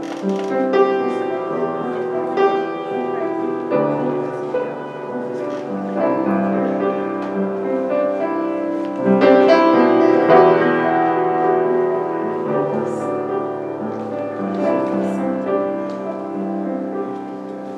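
Piano or keyboard playing slow, held chords without voice.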